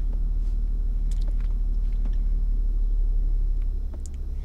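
Low, steady rumble of a car running, heard inside its cabin; the rumble drops in level near the end.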